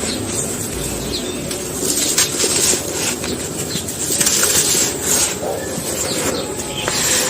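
Dry, grainy, sandy material crumbling and crushing in a small tub: a steady gritty rustle with repeated crunchy surges every second or so.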